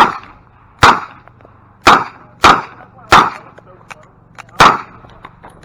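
Revolver firing six shots at uneven spacing, mostly about a second apart or less, with the last one a little under five seconds in.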